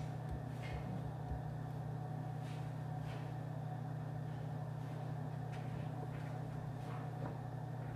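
Office ambience: a steady low hum, like ventilation or air conditioning, with a few faint, scattered clicks and taps.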